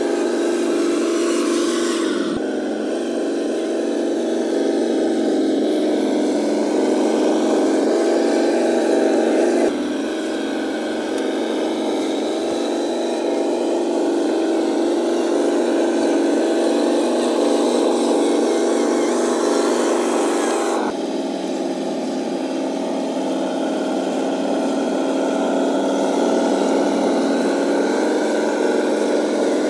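Scale RC truck's diesel engine sound running steadily at one pitch, with no revving. Its tone jumps abruptly about two, ten and twenty-one seconds in.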